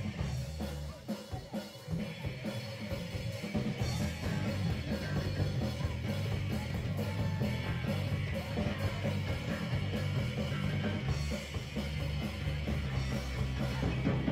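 Live punk-rock band of electric guitar, bass and drum kit playing, with the drums to the fore; the music thins out briefly about a second in, then comes back in full.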